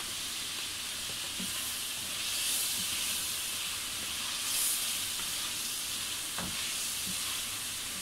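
Chicken and spice masala frying in ghee in a steel pan, sizzling steadily as it is stirred with a wooden spatula. The sizzle swells twice, and a few light knocks come late on.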